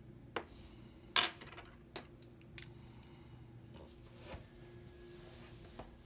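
Pencils knocking on a desk as one is put down and another picked up: about seven sharp clicks, the loudest a little over a second in, with a brief rattle after it.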